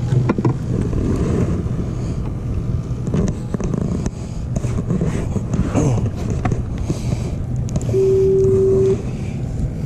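Low steady rumble of a small fishing boat on the water, with wind on the microphone and scattered clicks and knocks of handling. A single steady beep lasts about a second near the end.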